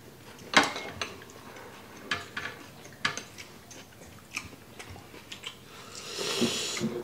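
Scattered clicks and taps of wooden chopsticks picking up grilled beef slices, with one sharper click about half a second in and a short rustle near the end.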